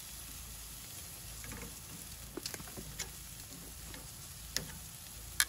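Steaks and hot dogs sizzling steadily on a hot grill grate, with several sharp clicks of metal tongs against the meat and grate in the second half.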